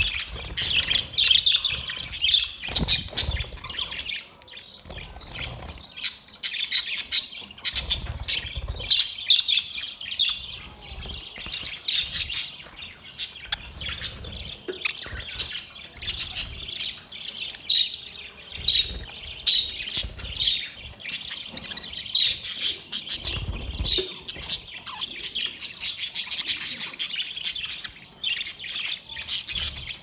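A flock of budgerigars chattering, with many short high chirps and squawks overlapping without a break. A few brief low rumbles sound beneath them.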